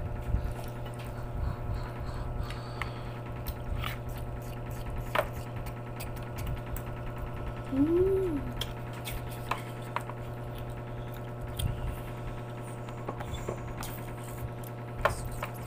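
Close-up mouth sounds of a person eating by hand: chewing and small smacking clicks, over a steady low hum. About eight seconds in there is a short closed-mouth hum that rises and falls.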